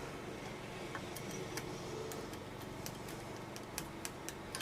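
Scattered light clicks and taps of small metal parts being handled while a chainsaw's flywheel is refitted, with a sharper click near the end.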